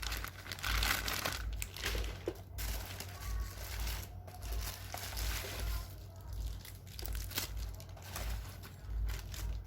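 Plastic packaging crinkling and rustling in irregular handfuls as camera accessories are handled and unwrapped, over a steady low hum.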